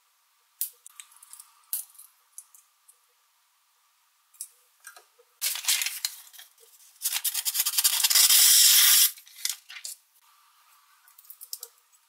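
Small scissors of a Victorinox Swiss Army knife cutting through a sheet of paper, a crisp run of snipping in the middle that is loudest for about two seconds. Before it come scattered sharp clicks as the knife's tools are handled and snapped open.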